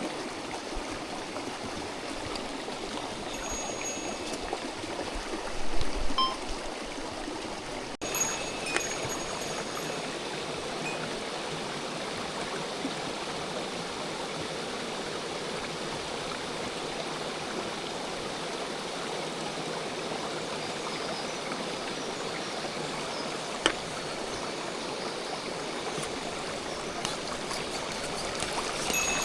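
Mountain stream water rushing steadily over rocks, with a couple of brief knocks about six and eight seconds in.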